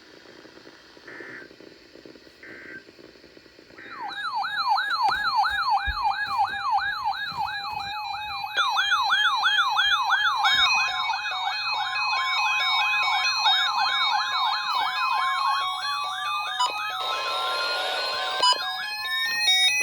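Three faint short beeps, then from about four seconds in, electronic sirens layered together. A siren warbles up and down about two and a half times a second, joined by more siren tones and rising sweeps that climb higher toward the end, with a brief burst of hiss near the end.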